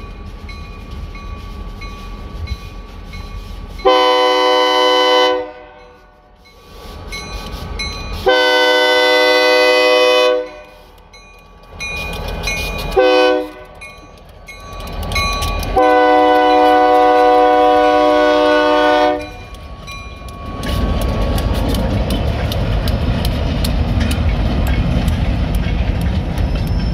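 EMD SD40 locomotive's multi-note air horn sounding the grade-crossing signal: two long blasts, a short one, then a long one, over the low rumble of the approaching train. About three-quarters of the way in, the locomotive and its covered hopper cars pass close by, with engine noise and wheels on the rails.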